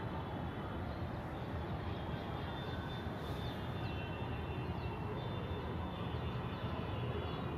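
Steady low outdoor rumble, with short high chirps scattered through the middle.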